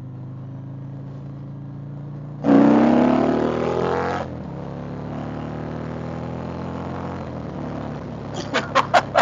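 2020 Indian Chieftain Dark Horse's V-twin running steadily in second gear, then opened up hard about two and a half seconds in, its pitch rising as it accelerates for nearly two seconds before the throttle shuts and it drops back to a steady run. Near the end comes a quick run of short, sharp bursts, about four a second.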